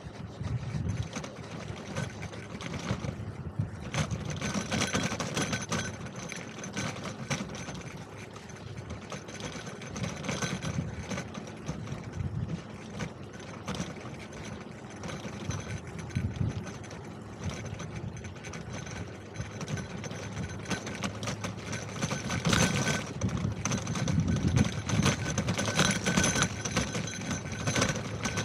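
A bicycle with a sidecar being ridden, with a continuous fast rattling and road noise that rises and falls.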